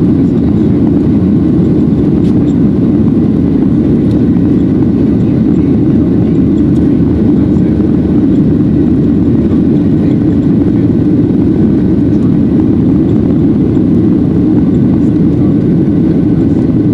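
Steady, loud cabin noise of a Boeing 737-800 climbing after takeoff: the CFM56 turbofan engines and rushing airflow, heaviest in the low range, with a faint steady whine over it.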